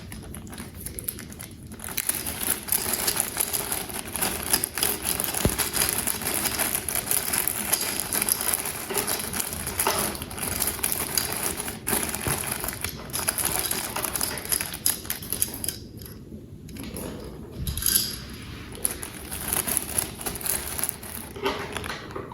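Hands handling plastic toy packaging and parts: continuous crinkling and rustling with many small clicks and taps, easing off briefly about two thirds of the way through.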